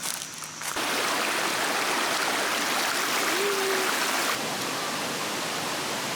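Valley stream water rushing steadily, starting suddenly about a second in and dropping slightly in level past the middle.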